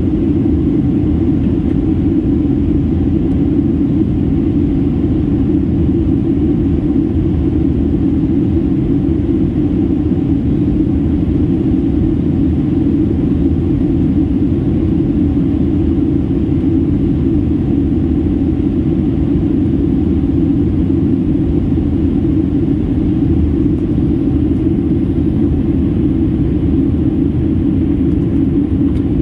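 Steady cabin noise inside a Boeing 737-800 in descent: a deep, even rumble of engine and airflow noise with no change in pitch or level.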